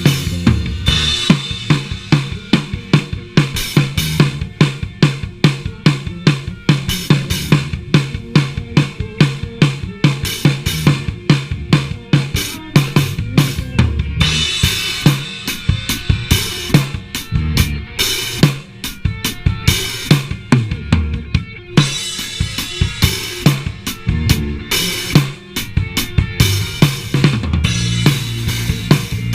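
Live band jamming, led by a drum kit playing a steady, busy beat of kick drum, snare and rimshots, with a low pitched instrument underneath. It is heard through a GoPro's built-in microphone.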